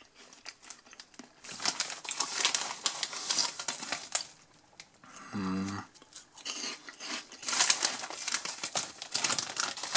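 Foil-lined plastic snack bag crinkling as a hand rummages inside it for corn-and-potato snack fries, in two spells with a short pause about halfway.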